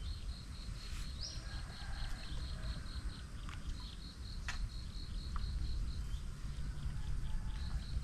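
An insect chirping in a steady, even train of high chirps, about three or four a second, pausing about six seconds in and starting again near the end, over a low rumbling background.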